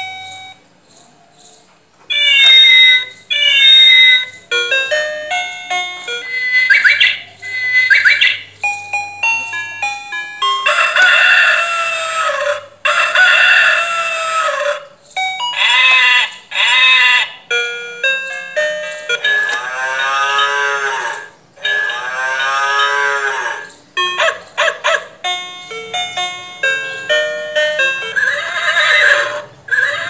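Electronic 'Animal Teaching Paradise' toddler activity table playing short beeping electronic jingles through its small speaker, alternating with recorded farm animal calls as its buttons are pressed, among them a sheep bleating.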